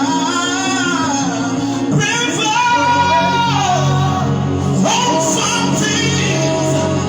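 Slow worship song: a voice sings a gliding melody with long held notes over a steady, sustained instrumental backing.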